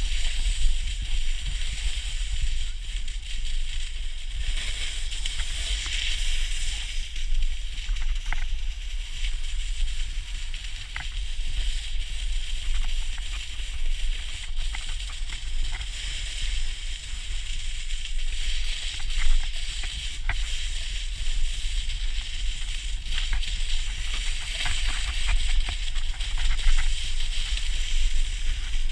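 Snowboard base sliding and scraping over packed snow while towed uphill on a drag lift: a steady rough hiss over a low rumble, with a few faint clicks.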